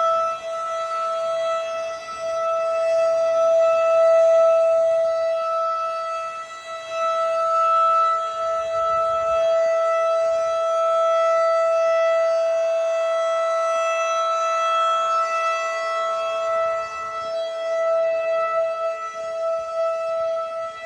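Federal Signal 2001 SRN rotating outdoor warning siren sounding a steady tone at full speed for a test. It is loud and low-pitched, and it swells and fades every few seconds as the rotating horn sweeps past.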